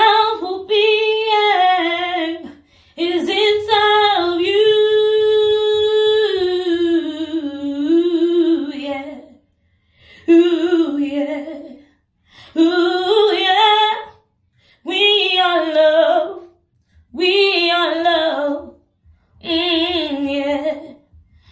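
A woman singing a cappella with no accompaniment, in phrases with a wavering vibrato. One long held note comes about five seconds in, then shorter phrases of about two seconds each, separated by brief pauses.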